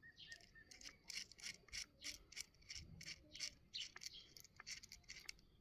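Faint, quick scraping and rubbing strokes, several a second and uneven, from a hand screwdriver turning a screw into the lawn mower's plastic housing.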